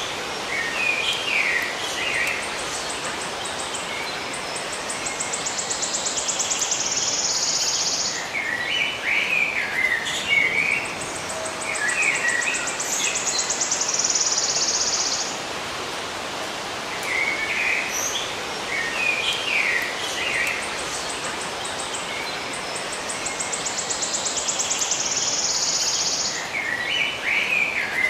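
Birds chirping in short bursts of quick notes, alternating with a high insect trill that quickens into a steady buzz for a few seconds, over a steady background hiss. The same pattern comes round again about every nine to ten seconds.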